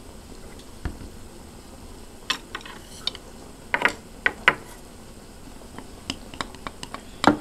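Chopsticks clicking against a small dish while stirring a sauce: scattered sharp ticks, a quick run of small ticks near the end, then one louder knock.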